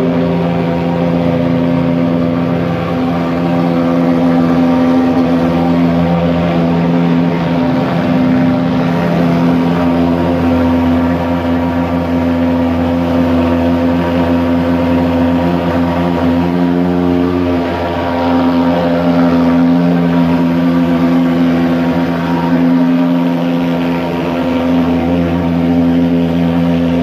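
Handheld pulse-jet thermal fogging machine running continuously while spraying insecticide fog, a loud, steady, low-pitched drone that wavers briefly twice.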